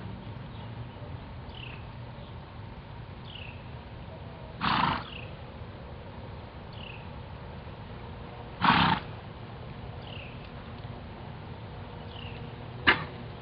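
A horse coughing: three harsh coughs about four seconds apart, the last one short and sharp.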